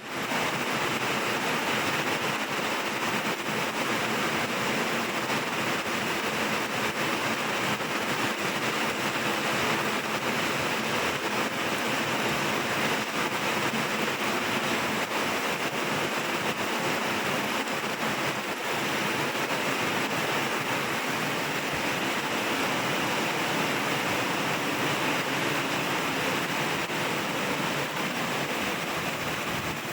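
Heavy rain pouring steadily: a dense, even hiss that never breaks.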